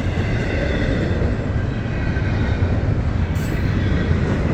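Cars of a Florida East Coast intermodal freight train, carrying containers and reefers, rolling past with a steady noise of steel wheels on the rails.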